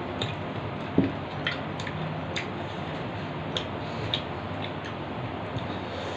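Eating by hand from steel plates: scattered small clicks and taps of fingers and food against the plates and mouth sounds of chewing, one louder tap about a second in, over a steady background hiss.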